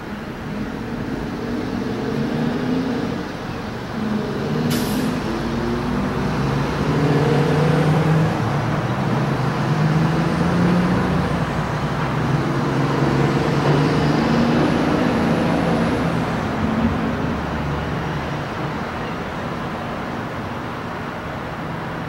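Rumbling engine noise of a passing vehicle, swelling to its loudest in the middle and slowly fading. A brief sharp hiss comes about five seconds in.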